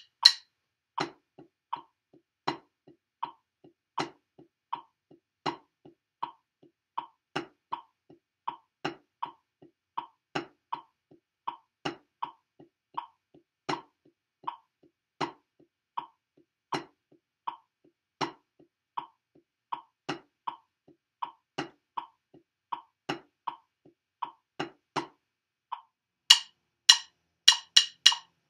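Drumsticks playing steady eighth notes with accents on a practice pad laid over a snare drum at 80 beats per minute, about two to three strokes a second with every few strokes louder. After a short pause near the end come a few sharper, louder clicks that count in the next tempo.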